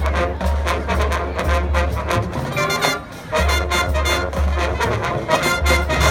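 High school marching band playing: brass chords punctuated by drum hits, with a brief break about three seconds in.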